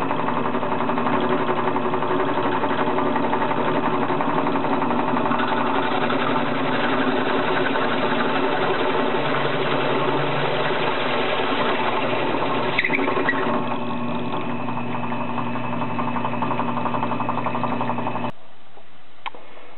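Benchtop drill press running with a hole saw cutting through an aluminium hard-drive platter sandwiched between wooden blocks. A steady motor hum mixes with the cutting noise, and it cuts off about 18 seconds in.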